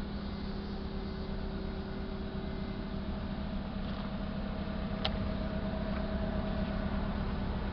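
Toyota RAV4's 3S four-cylinder petrol engine idling steadily, with a single sharp click about five seconds in.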